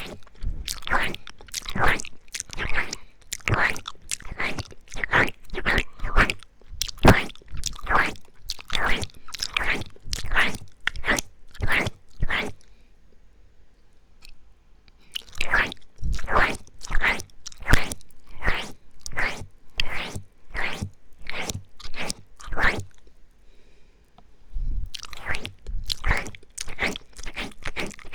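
Close-microphone ASMR ear-eating mouth sounds: wet lip and tongue smacks and clicks, about two a second, with two short pauses about halfway through and again near the end.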